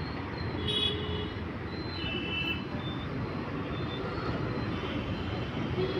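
Road traffic heard from a moving scooter: a steady rush of engine and tyre noise, with a couple of short high-pitched tones about one and two seconds in.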